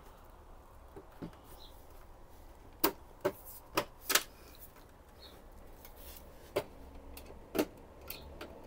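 Plastic clicks and snaps as the front cover of an HP LaserJet Tank printer is prised off its latches with a flat screwdriver. Four sharp clicks come close together about three seconds in, and two more follow a few seconds later.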